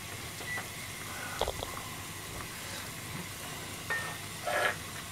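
Pan of onishime broth with chicken and vegetables simmering steadily, while a metal ladle stirs it, clinking against the pan a couple of times about a second and a half in and scraping briefly near the end.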